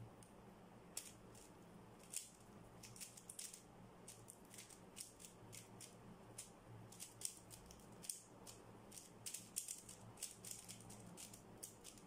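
Plastic 3x3 speed cube being turned fast during a timed solve: quick, irregular runs of light clicks and clacks as the layers snap around, starting about a second in.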